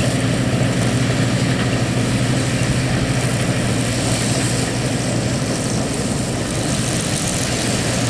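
Massey-Harris Clipper combine harvesting wheat: a steady engine drone together with the running threshing machinery, with no change in pace.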